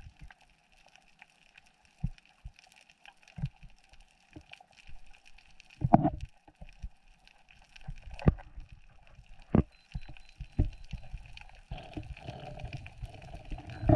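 Muffled underwater sound of a diver in the sea: a faint steady hiss with scattered knocks and gurgles a second or more apart, then a low rushing of moving water near the end.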